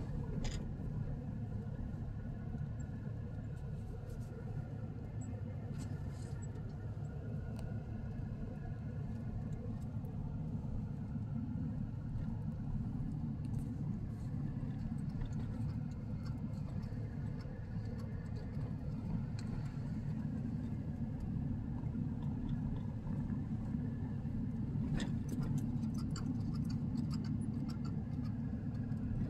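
Steady low road and engine rumble heard from inside a car's cabin as it drives slowly, with a few faint clicks near the end.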